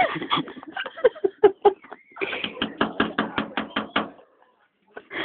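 People giggling and snickering in quick bursts of stifled laughter, about five pulses a second, breaking off about four seconds in.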